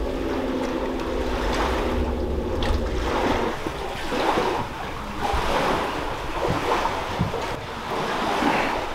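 Wind buffeting the microphone and waves washing against the shore, swelling and falling in gusts; a steady low hum runs under it for the first few seconds, then stops.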